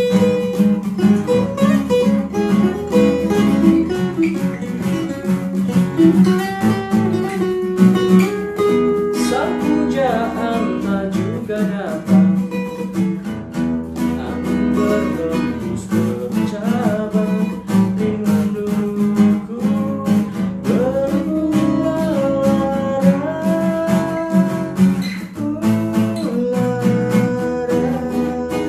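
Acoustic guitar strummed in a steady rhythm, playing the chords of a pop ballad.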